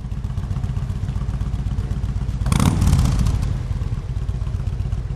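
Motorcycle engine running with a steady low, fast pulsing beat, growing louder for about a second partway through.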